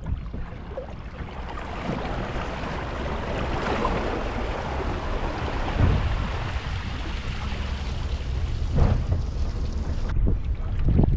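Gusty wind buffeting the microphone with a deep rumble, over a steady rushing hiss of wind and water around a fishing boat. There are stronger gusts about halfway and again near the end, and the sound changes abruptly shortly before the end.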